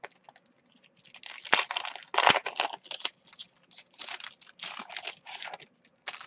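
Clear plastic packaging of a cutting-die set crinkling and rustling in irregular bursts as it is handled and the die card is slid out, loudest a couple of seconds in.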